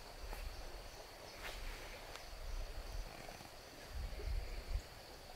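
Outdoor ambience: a steady high-pitched insect drone over uneven low rumbling, with two faint clicks about one and a half and two seconds in.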